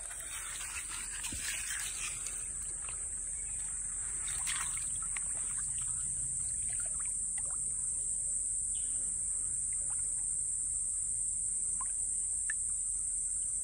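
A steady high-pitched insect buzz, with light splashing and trickling of shallow creek water around a barramundi held by hand in the current for release; the splashes come mostly in the first few seconds.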